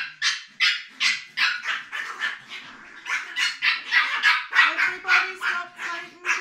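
A small dog barking over and over in quick, sharp, high-pitched yaps, about three a second.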